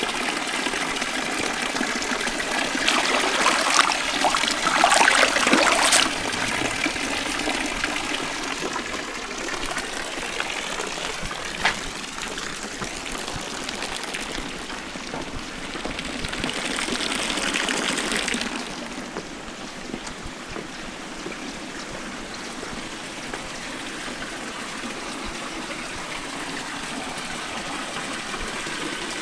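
Water pouring from stone fountain spouts and splashing into a granite basin, a steady trickling and splashing that grows louder for a few seconds near the start and again about two-thirds of the way through.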